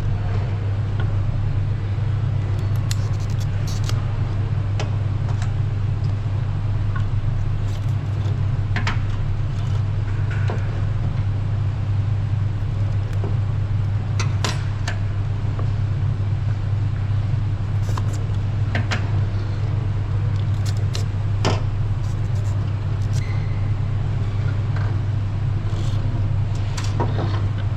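A steady low hum at one pitch, with scattered light clicks and knocks over it.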